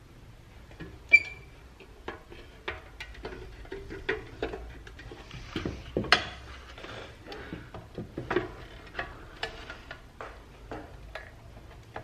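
Irregular light clicks, taps and knocks of painted sheet-metal toy truck parts being handled and fitted together, with a sharp ringing metal clink about a second in.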